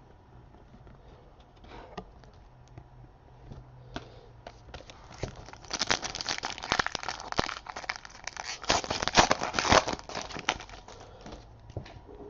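Plastic or foil wrapping crinkling and tearing as trading-card packs are handled. There are faint scattered clicks at first, then a burst of dense crinkling from about halfway in.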